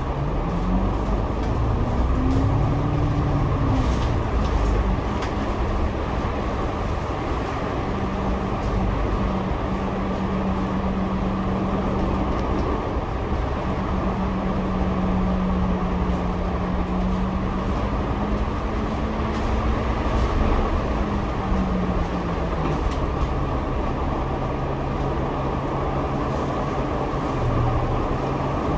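Double-decker bus engine and drivetrain running while under way, heard inside the upper deck over a steady rumble. Its hum rises in pitch about two seconds in, holds steady for a long stretch, and falls back near the end as the bus slows.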